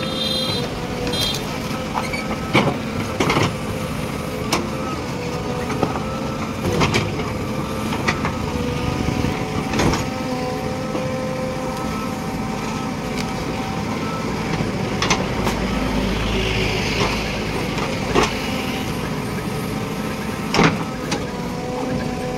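JCB 3DX backhoe loader's diesel engine running steadily under load while its backhoe bucket digs and pries at a large tree stump to work it loose. Irregular sharp knocks and cracks come from the bucket striking the stump, roots and soil, and a brief rush of noise with a low rumble comes about three-quarters of the way through.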